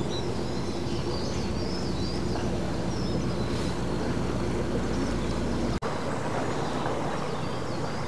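A passing narrowboat's diesel engine running steadily, with small birds chirping over it in the first few seconds. The sound cuts out for a split second near the six-second mark.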